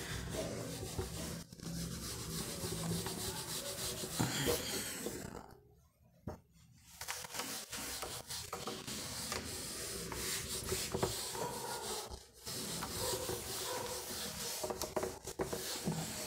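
A wooden-backed whiteboard duster rubbing back and forth across a whiteboard, wiping marker writing off in a steady scratchy rasp. The rubbing stops for about two seconds some six seconds in and breaks briefly near twelve seconds.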